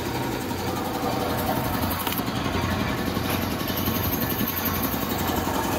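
Gati 1 HP single-piston air compressor, driven by a Godrej electric motor, running on test: a steady mechanical running sound with a fast, even beat.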